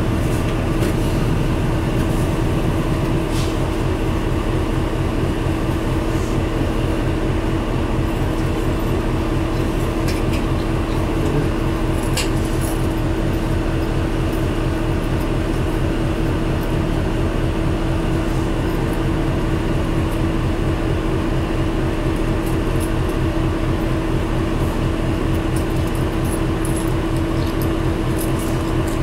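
Isuzu Cubic city bus's diesel engine idling steadily, heard from inside the passenger cabin, with a constant steady hum above the engine note.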